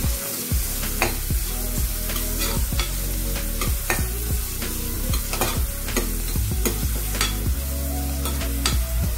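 Chopped onions, green chillies and garlic sizzling in hot oil in a pressure cooker pan as they are fried toward golden brown. A spatula stirs them, scraping and clicking against the pan bottom at irregular beats of about two a second.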